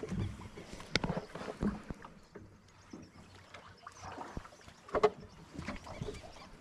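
Irregular water splashes and light knocks at a small boat on a river, with a faint low hum underneath.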